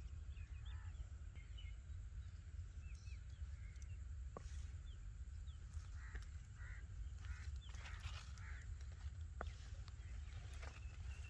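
Steady low wind rumble on the microphone in an open field, with faint, scattered bird chirps and a few soft clicks.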